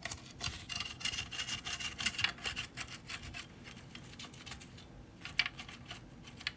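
A toothbrush scrubbing a toy car's body in short, quick strokes, the bristles rubbing over it, with a brief lull past the middle.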